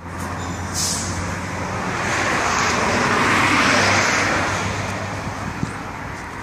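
Road traffic: a passing vehicle grows louder to a peak about three to four seconds in and then fades, over a steady low hum.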